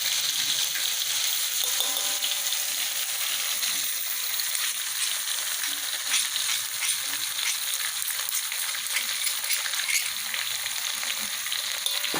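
Pounded paste of red and green chili, shallot and garlic frying in hot oil: a steady sizzle with scattered crackles.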